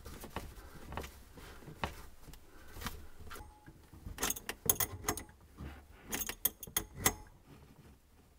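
Metal wrench clicking and clinking on the fitting as a braided dishwasher water supply line is tightened onto the sink's shut-off valve. The clicks are scattered, with two quick runs of metallic clinks in the second half.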